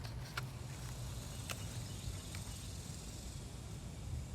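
Outdoor garden ambience: a faint, steady high insect drone over a low rumble, with a few light clicks.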